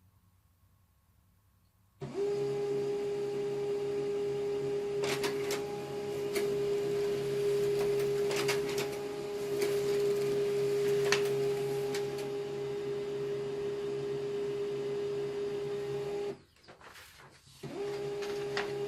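HP LaserJet Pro M15w laser printer printing a page. After about two seconds of near silence it starts suddenly with a steady whirring hum, with a few sharp clicks along the way. It stops briefly near the end, then starts again.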